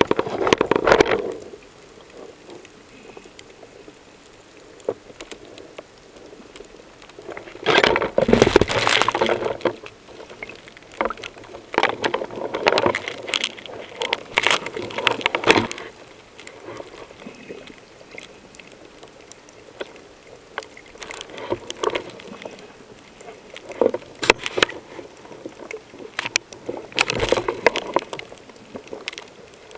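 Underwater recording: several bursts of bubbling and rushing water, each one to four seconds long and full of small crackles, with a low hiss between them.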